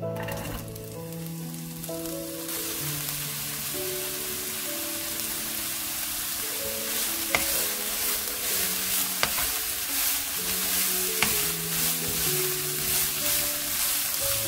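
Shredded bellflower root (doraji) sizzling in hot oil in a nonstick wok as it is stir-fried with a wooden spatula. The sizzle starts about two seconds in, with the spatula scraping and a few sharp taps against the pan, over soft background music.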